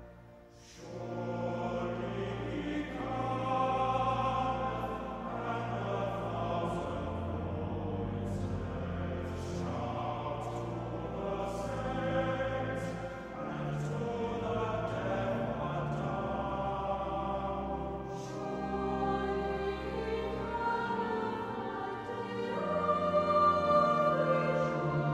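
Choir singing an Advent hymn with orchestral accompaniment, a new verse starting about a second in after a short pause.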